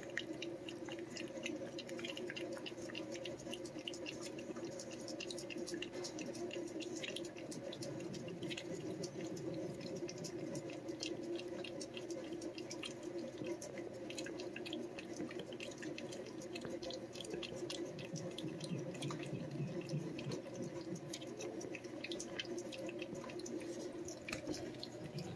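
A domestic cat licking lickable paste treat from a squeeze tube: a continuous run of small wet licking clicks, several a second, over a steady low hum.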